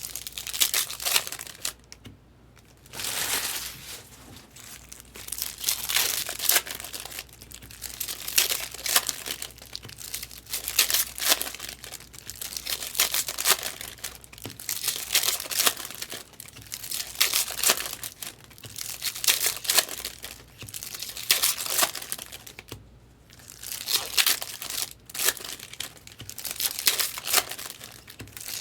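Crinkly plastic wrappers of trading card packs being torn open and handled, in repeated bursts of crackling every second or two.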